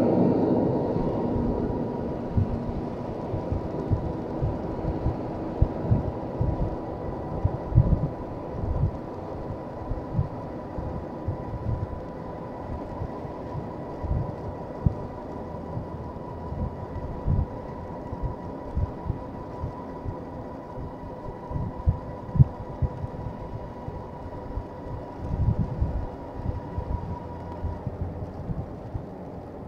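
Wind buffeting the microphone of a handlebar camera on a moving bicycle, in uneven low gusts, with a faint steady whine that stops near the end. Traffic noise fades away at the very start.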